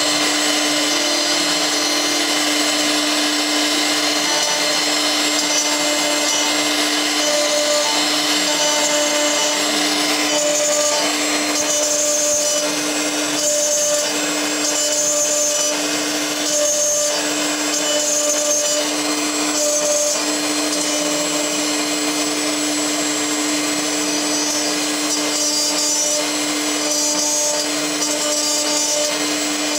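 CNC milling machine cutting metal with a small end mill: the spindle hums steadily over a hiss of air or mist coolant from the nozzle, and a higher cutting tone comes and goes in a regular rhythm, about every one and a half seconds, as the tool works back and forth through the part.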